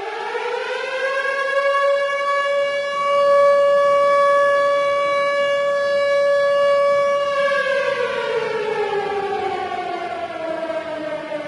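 Air raid siren wailing: its pitch rises for about two seconds, holds one steady note, then slides down from about seven seconds in, and begins to climb again at the very end.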